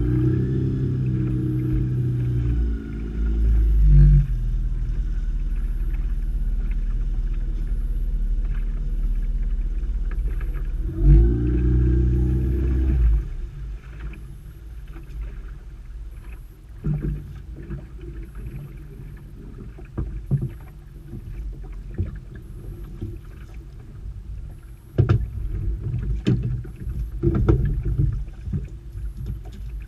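Small boat's outboard motor running steadily under way, rising briefly about eleven seconds in, then throttled right back about thirteen seconds in. After that, a quieter low running sound with water against the hull and scattered knocks as the creel rope is handled over the gunwale.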